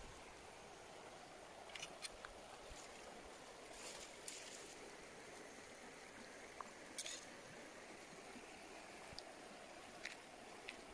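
Faint, steady rush of a shallow river, with scattered light clicks and taps as a knife cuts a fish on a wooden chopping board.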